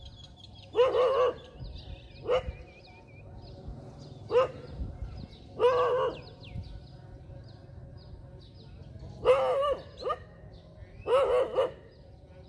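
A dog barking in single barks, about six of them, one to three seconds apart, with small birds chirping faintly in the background.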